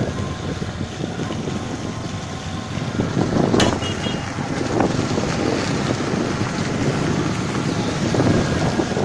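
Wind buffeting the microphone of a camera riding in a moving vehicle, over steady road and engine noise. A sharp click comes about three and a half seconds in.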